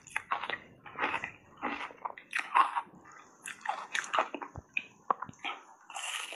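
Close-up crunching and chewing of a frozen foam ice bar coated in matcha powder, a crisp crunch with each chew at about two or three a second. A fresh bite into the bar comes near the end.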